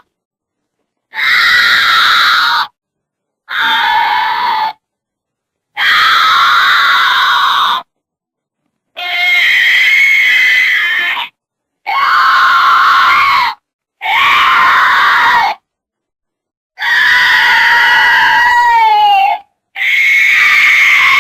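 Goats screaming in human-like yells: about eight separate calls, each one to three seconds long, cut apart by short stretches of dead silence.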